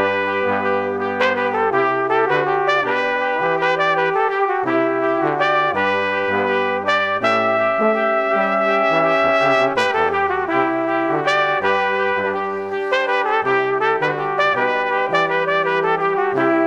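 Background music with trumpet-like brass playing a melody over a bass line, at a steady level.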